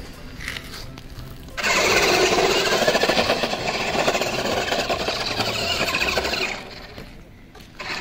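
Ruko 1601AMP amphibious RC monster truck's electric motor and gearbox whirring at full throttle as it drives off. The whir cuts in sharply about a second and a half in and stops about six and a half seconds in.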